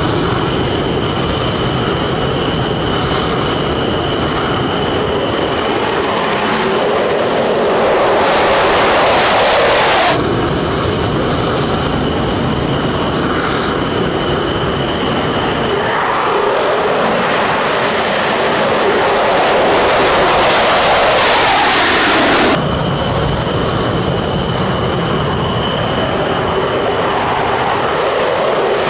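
F-22 Raptor jet fighter engine noise: a continuous loud jet rush with faint steady high whine tones. Twice the noise swells louder over a few seconds and then cuts off suddenly, about ten seconds in and again about two-thirds of the way through.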